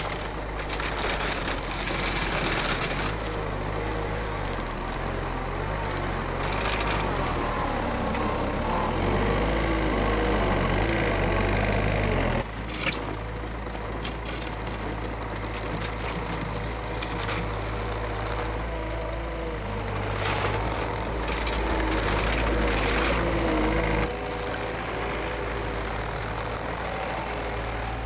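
Compact track loader's diesel engine running and revving up and down as it pushes snow with its bucket. The sound drops suddenly about halfway through and again near the end.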